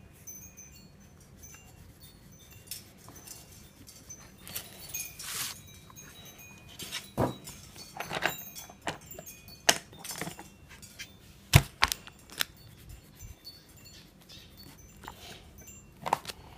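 Scattered light clicks, taps and clinks of drawing tools being picked up, put down and knocked together on a table while a child colours a picture, with one sharper knock a little past the middle.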